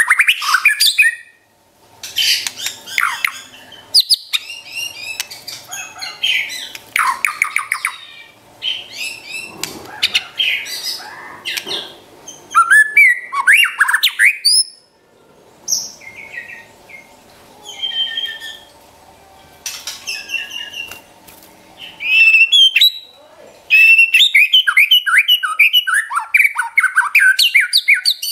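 White-rumped shama (murai batu) singing: varied, clear whistled phrases broken by short pauses. These are mixed with fast runs of rapidly repeated notes (trotol), with the longest run near the end.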